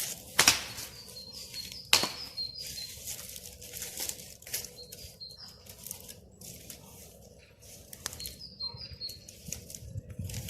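Birds chirping in short repeated calls over irregular rustling bursts, with two sharp knocks about half a second and two seconds in.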